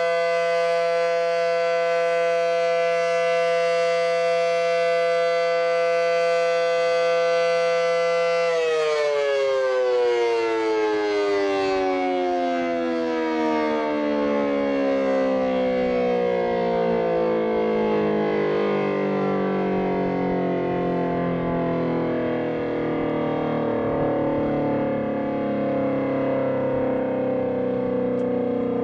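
Federal Signal SD-10 electromechanical warning siren sounding at a steady full pitch. About eight seconds in it is switched off and winds down, its pitch falling slowly and smoothly and still sliding down at the end.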